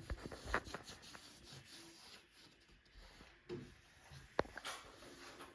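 Wallpaper being handled on the wall: faint rustling of paper with a few light, scattered taps and clicks.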